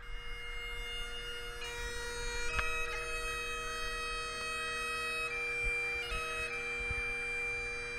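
Bagpipe music: a steady drone under a slow melody of long held notes that change about every second or two.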